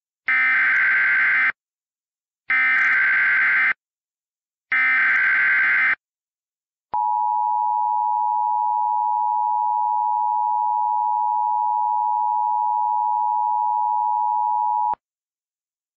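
Emergency Alert System header: three short bursts of buzzing digital data, then a steady attention tone held for about eight seconds that cuts off suddenly. Together they open a flash flood warning.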